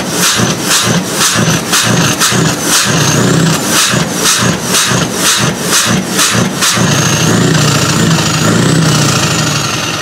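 Heavy truck's V8 engine through open exhaust pipes, revved in quick repeated blips about three a second, then held steadier before dropping away near the end, with a thin high whistle over it.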